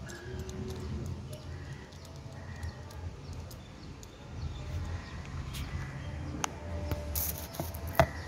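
Small metallic clicks and clinks of a motorcycle engine's timing chain and camshaft sprocket being turned by hand, with a sharp clink near the end, over a low steady hum.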